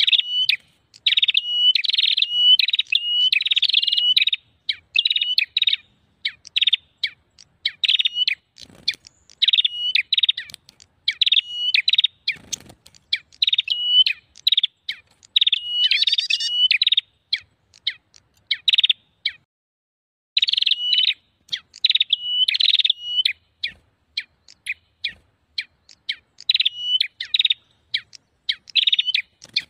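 Prenjak bird-lure recording: busy, rapid runs of sharp, high chirps repeated in bursts of a second or two with short breaks, and a pause of about a second about two-thirds through. It is the noisy, excited prenjak call played to draw wild prenjak in.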